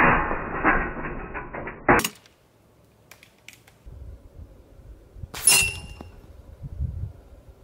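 Break-barrel air rifle being cocked: a dense mechanical noise for about two seconds that ends in a sharp click as the action locks. About three seconds later a shot and a pellet striking a steel spinner target, which rings like a bell.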